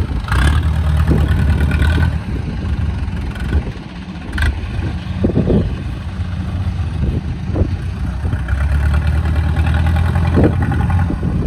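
Engine of a small tracked rice-hauling carrier working under load with a heavy cargo of paddy sacks. It runs steadily and grows louder twice, in the first two seconds and again from about 8.5 to 11 seconds, with a single sharp clack at about 4.4 seconds.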